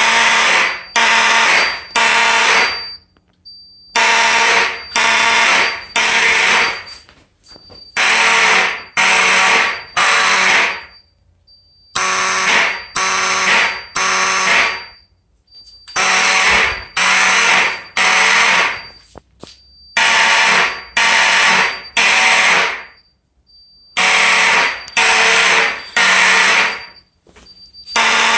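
Several vintage fire alarm horns, among them a motor horn, sounding together in the code 3 temporal pattern: three short raspy blasts, a pause, then three more, repeating about every four seconds. A faint high-pitched whine carries on between the blasts.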